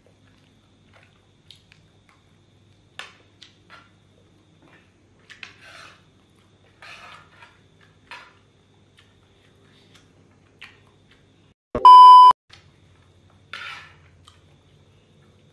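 Quiet eating sounds: a spoon and fork scraping and clinking in a frying pan, with chewing. About twelve seconds in, a loud electronic beep lasting about half a second cuts across everything.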